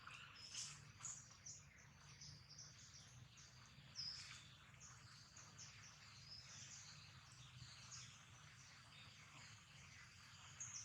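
Faint bird chirping: many short, high chirps scattered throughout, over a low steady hum.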